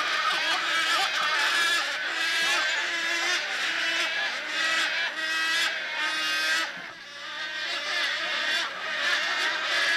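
Dense chorus of animal calls, many wavering calls over one another. Under them a lower call repeats about every two-thirds of a second. About seven seconds in the sound briefly dips and the low repeating call stops.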